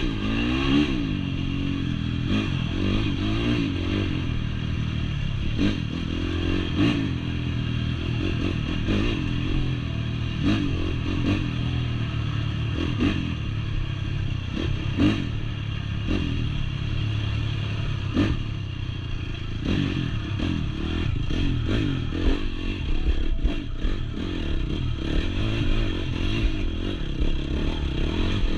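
Honda CRF four-stroke dirt bike engine revving up and falling back again and again as it is ridden off-road, with frequent clattering knocks.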